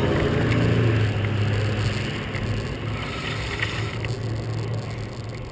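Wind buffeting a handlebar-mounted camera and tyres rolling on pavement as a bicycle rides along, with a low hum that fades out over the first two seconds.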